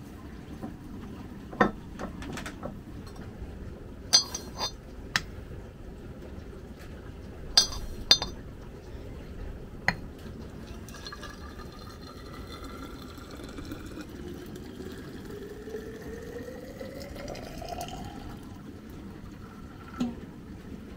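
Glass clinking several times, then liquid being poured into a glass container, its pitch rising steadily as it fills over about seven seconds.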